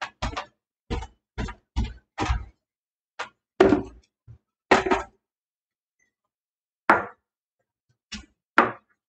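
Household items being set down and moved about on a table: a string of knocks and thunks, the loudest a little under four and five seconds in, then a pause of about two seconds before a few more.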